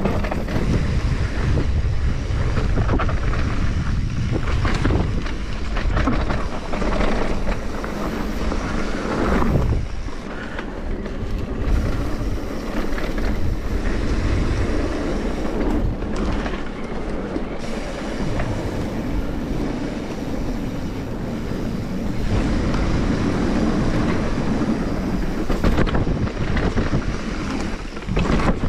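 Mountain bike riding down a rough trail: continuous rumble of tyres over dirt and rock with rattling of the chain and frame, and wind buffeting the microphone.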